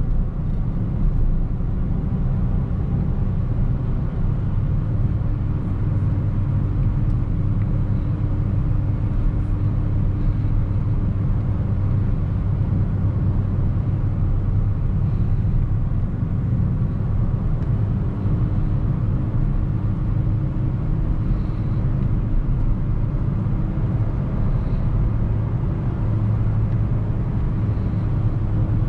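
2008 Suzuki Swift Sport's 1.6-litre four-cylinder engine running under way, with steady low road and tyre rumble. An engine hum holds an even pitch for a stretch, fades in the middle and comes back for the last third.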